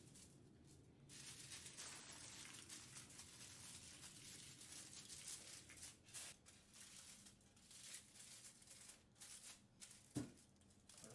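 Faint crinkling and rustling of aluminium foil as it is folded and pressed around the sides of a square cake pan, with one sharp knock about ten seconds in.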